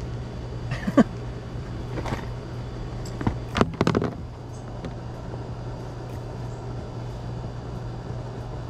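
A steady low mechanical hum, with a few sharp clicks and knocks of hand work at the skylight's flange and screws, most of them between one and four seconds in.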